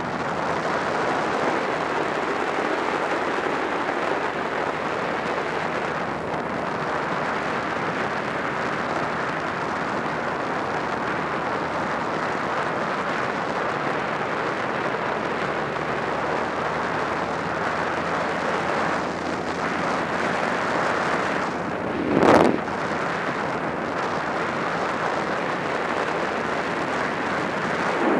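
Steady wind rush over the camera microphone on a moving Honda Rebel 250 motorcycle, with the road and engine noise blended in. A brief loud thump comes about 22 seconds in.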